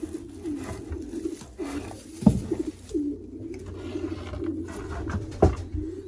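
Racing pigeons cooing continuously in the loft, with two sharp knocks about two seconds in and near the end.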